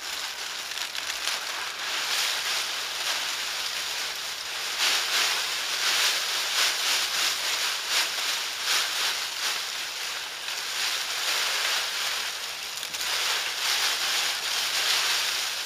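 Dry leaf litter rustling and crunching continuously as it is handled, with an uneven crackle that swells louder around the middle and again near the end.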